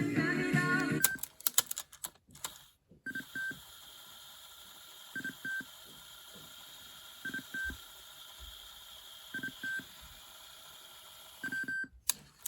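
Cassette Walkman output: a song cuts off with a few clicks, then tape hiss runs with a short double beep about every two seconds, and after more clicks the music starts again near the end.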